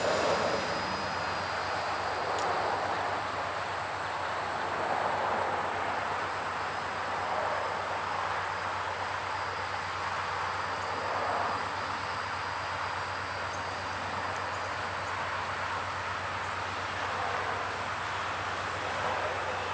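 Norfolk Southern GE C40-9W and C40-8W diesel locomotives running as they slowly pull a ballast train forward. Their engines give a steady low hum under a rumble that swells and eases now and then.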